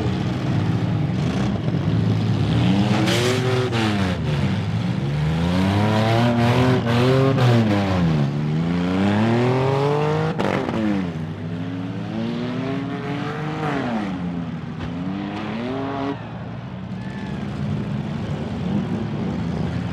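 Several 1990s-and-newer demolition derby cars' engines revving up and down hard, their pitches rising and falling, as they accelerate and reverse on dirt. Sharp knocks of the cars ramming each other cut in, the strongest about ten seconds in.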